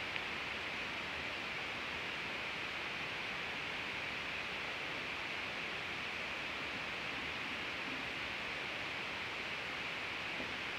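Steady, even hiss with no distinct events, strongest in a fairly high band.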